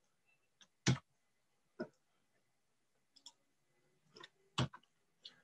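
A few sharp clicks of a computer mouse, the loudest about a second in, another just under a second later and one more near the end, with fainter clicks between.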